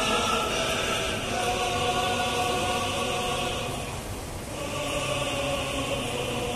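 Background music of long held chords in sustained choir-like voices, with a brief change about four seconds in.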